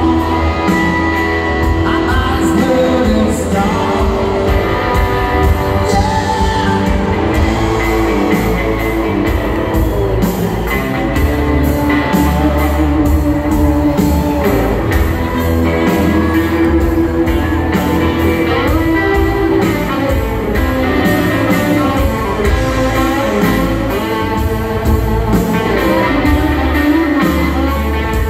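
Live band performing in a large arena: a male voice singing over guitars, bass and drums, heard from the crowd with the hall's echo.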